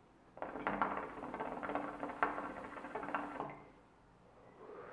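Hookah water base bubbling in a rapid, irregular rattle as the smoker draws hard on the hose for about three seconds. Near the end comes a soft exhale of the smoke.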